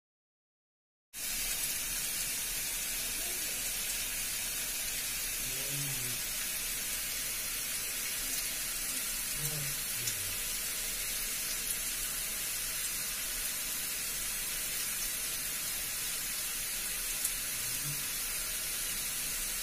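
A steady, even hiss that starts abruptly about a second in and holds at a constant level, with a faint voice in the background a few times.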